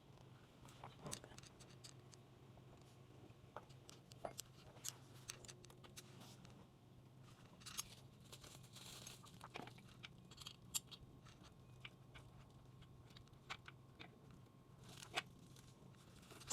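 Faint scattered clicks, taps and crinkling of hands working on motorcycle parts, over a low steady hum; a short crinkly tearing sound about nine seconds in.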